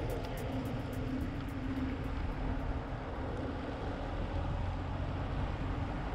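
Steady low rumble of riding noise and wind while cycling, with a fast, regular ticking, about six ticks a second, that fades out over the first few seconds.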